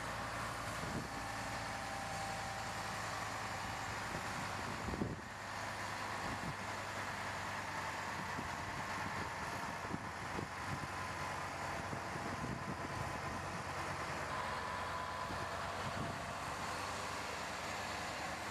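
Heavy-haul truck's diesel engine running steadily as it slowly tows a long multi-axle trailer past.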